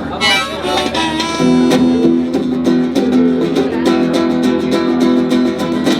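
Live band playing a song's instrumental intro: guitar strummed in a steady rhythm, with held chord tones coming in about a second and a half in.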